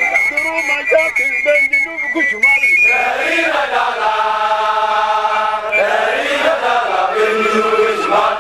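Crowd of soldiers chanting together, with a long held note from about three seconds in. A steady high tone sounds over the first couple of seconds.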